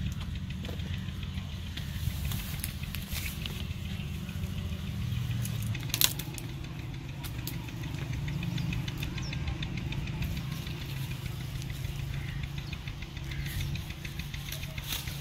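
Leaves and twigs of an amla tree rustling and crackling as a man climbs through the branches and picks gooseberries, with one sharper snap about six seconds in. A steady low rumble runs underneath.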